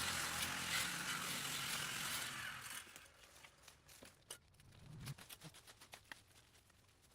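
Pressure washer running, its motor humming low under the hiss of the spray, which cuts off about three seconds in. Scattered light clicks and taps follow.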